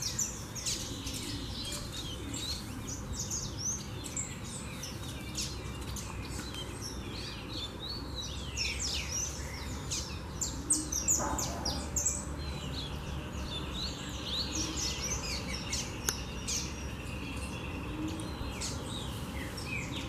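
A feeding flock of saffron finches mixed with double-collared seedeaters (coleiros) chirping, many short high calls overlapping all the while.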